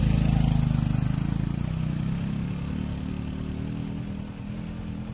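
Small underbone motorcycle engine pulling away uphill, loud at first and fading steadily as the bike climbs away.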